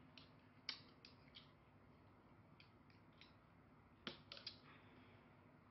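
Plastic utensils clicking and scraping against a plate while picking apart a steamed fish: a loud click a little under a second in, a few light taps in the middle, and a quick run of three or four clicks about four seconds in, over near silence.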